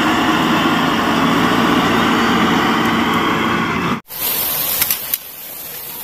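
Agrimac 940 wheel loader's diesel engine running steadily, cutting off suddenly about four seconds in. After it come a couple of light clicks from toy trucks being handled.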